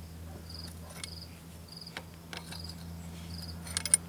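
Cricket chirping in short, evenly repeated chirps over a steady low hum, with a few sharp clicks near the end.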